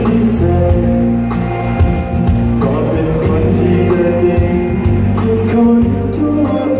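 A man singing a Thai pop song into a handheld microphone over a backing track, amplified through stage speakers, holding long steady notes.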